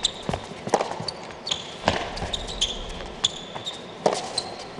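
Tennis rally on an indoor hard court: the ball is struck by rackets and bounces off the court, a sharp knock every half second to a second. Short high squeaks of sneakers on the court come between the hits.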